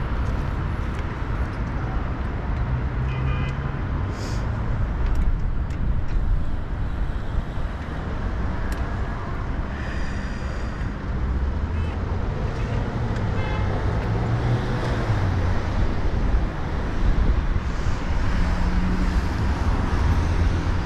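Steady road-traffic noise and wind rumble heard from a bicycle as it rides through city streets, with a few brief high-pitched tones standing out.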